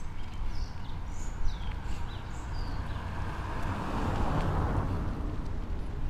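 Wind and road rumble on the camera while riding a bicycle, with a few short bird chirps in the first couple of seconds and a swell of noise that builds and fades about four seconds in.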